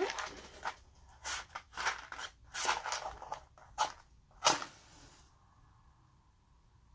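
A match struck against its box several times with short scraping strokes, the last and loudest catching about four and a half seconds in. A faint steady sound of the burning match follows.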